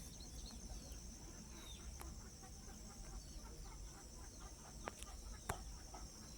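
Faint backyard ambience: chickens clucking and small birds giving short falling chirps over a steady high-pitched trill, with two sharp clicks about five seconds in.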